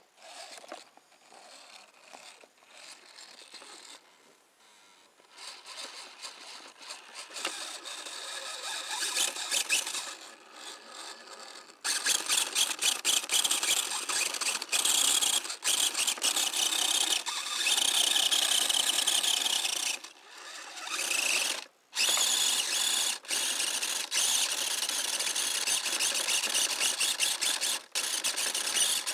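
Electric motor and gears of an Axial scale RC rock crawler whining under throttle as it crawls over rocks. The whine is faint at first and builds, then runs steadily from about 12 seconds in, cutting out briefly a few times.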